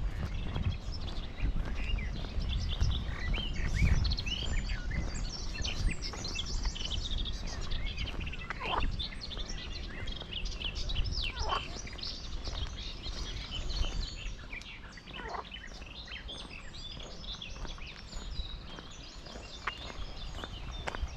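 Songbirds chirping and calling, with a few longer whistles that fall in pitch, over a low, uneven rumble.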